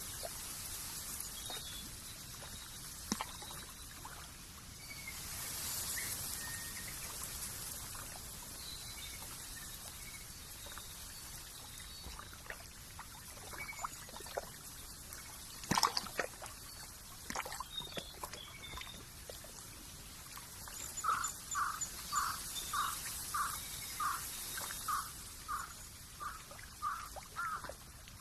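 Nature ambience of trickling, dripping water with scattered bird chirps over a steady high hiss that swells and fades. Near the end an animal calls a dozen times in a row, about two calls a second.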